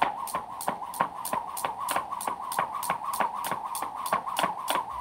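Jump rope turning steadily, slapping the ground about three times a second, over a continuous wavering whir.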